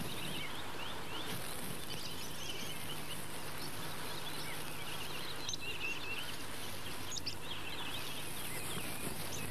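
Small birds chirping and twittering on and off over a steady background hiss, with a faint low hum underneath.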